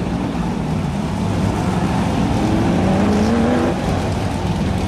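BriscaF1 stock car V8 engines running on the track. One engine revs up with a rising pitch about two seconds in and drops off just before four seconds.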